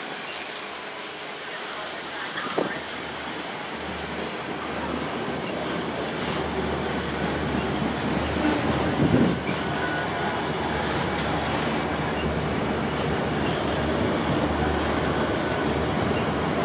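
Freight train of enclosed autorack cars rolling past close by: the steady rumble and rattle of steel wheels on the rails, growing slightly louder, with a few faint wheel squeals and a brief louder bump about nine seconds in.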